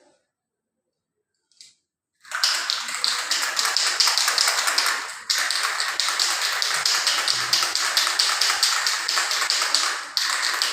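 Aerosol can of magnetic particle testing ink in use: a loud, rattly hiss that starts about two seconds in and goes on in long bursts, breaking off briefly twice.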